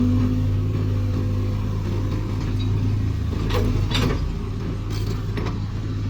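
Hitachi UH25-3 hydraulic excavator's diesel engine running steadily, with a few sharp metallic clanks from about three and a half to five and a half seconds in.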